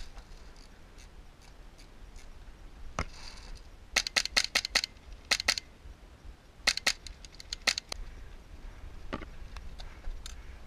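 Airsoft rifle firing in short rapid bursts of sharp snapping shots, several bursts in the middle with scattered single shots around them.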